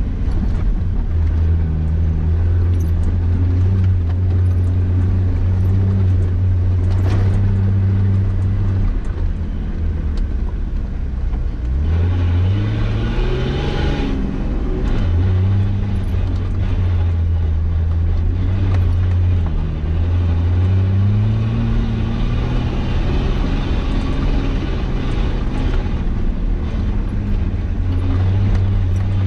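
Nissan Patrol Y60 engine running steadily on an off-road trail. Its pitch climbs into a rev about halfway through, drops back, and rises again about two-thirds of the way in.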